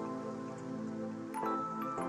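Background music: soft held chords, with new notes coming in about one and a half seconds in.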